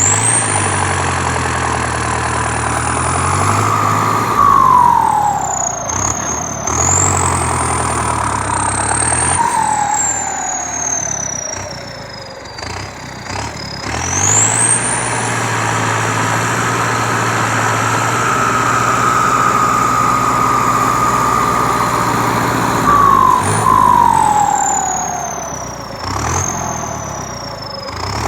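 Heavy vehicle's engine speeding up and slowing down again several times, with a whine that rises and falls with it; held steady for several seconds in the middle before it drops away.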